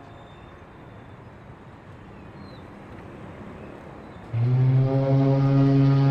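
Faint steady hiss in a gap between background music tracks. About four seconds in, a sustained low drone note starts abruptly as the next music track begins.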